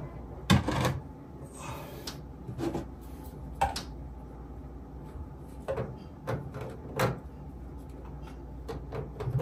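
Irregular knocks and clunks, about half a dozen, as sink drain pipe, gasket and P-trap parts are handled and pushed together.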